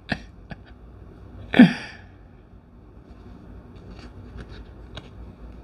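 Tarot cards being handled during a flip-through, giving a few faint clicks and taps. About one and a half seconds in there is one short vocal sound with a falling pitch.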